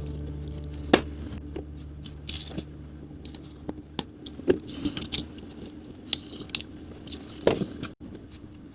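Plastic LEGO Technic pieces clicking and rattling as they are handled and snapped together: scattered sharp clicks, the loudest about a second in and again about seven and a half seconds in.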